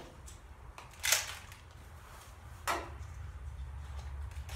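Three sharp plastic clacks from a Nerf blaster being handled and reloaded: a strong one about a second in, a fainter one near three seconds, and another at the very end.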